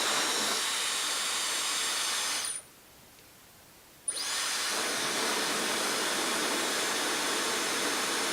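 Dyson Supersonic hair dryer blowing steadily. It stops about two and a half seconds in and starts again a second and a half later.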